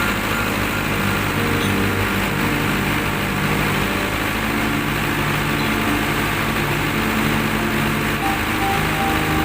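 Colt Diesel 100 PS diesel engine running steadily at a constant speed, powering a well-drilling rig.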